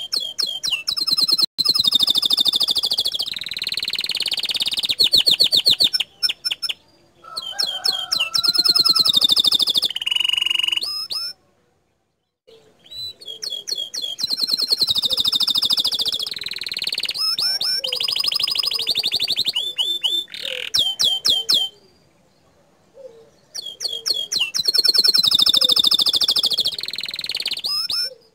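Domestic canary singing vigorously: long phrases of rapid trills and rolling repeated notes, broken three times by short pauses.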